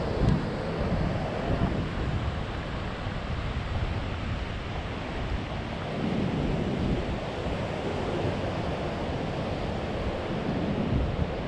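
Wind blowing across the microphone, gusting louder briefly at the start, about halfway through and near the end, over a steady rush of ocean surf breaking on the beach.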